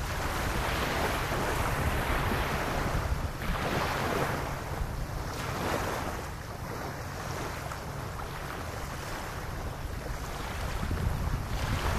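Small waves lapping on a sandy beach, each wash swelling and fading every couple of seconds, with wind rumbling on the microphone.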